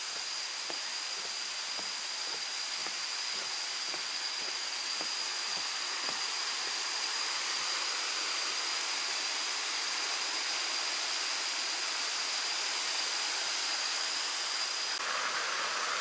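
Steady rushing of a waterfall's cascading water, with a thin steady high whine over it that stops near the end, where the water sound turns brighter.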